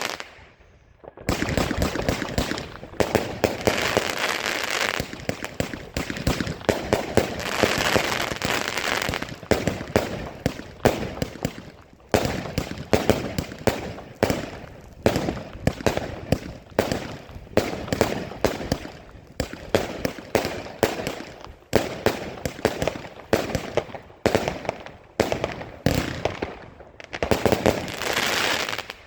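Fireworks going off in rapid succession: a dense run of bangs, pops and crackles with hardly a pause, after a short lull about a second in.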